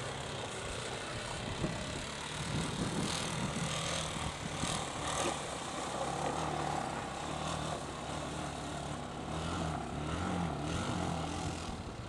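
ATV (four-wheeler) engine running, its pitch rising and falling as the throttle is worked.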